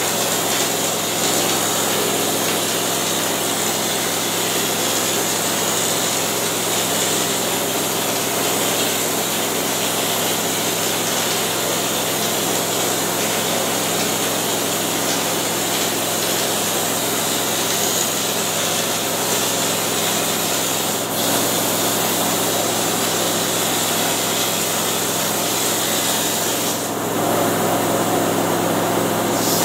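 Air-powered texture hopper gun spraying ceiling texture: a steady, loud hiss of compressed air with a low hum underneath. The hiss loses its high edge about 27 seconds in.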